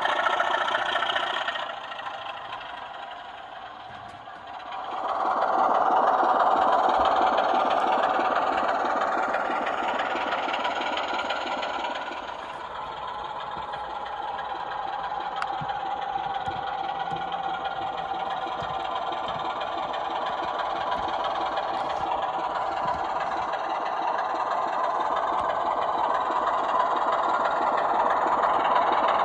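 Sound-fitted SLW Class 24 model diesel locomotives playing recorded Sulzer diesel engine sound through their small on-board speakers. The engine note falls away about two seconds in, then revs up again about five seconds in and runs on, easing slightly partway through before slowly building.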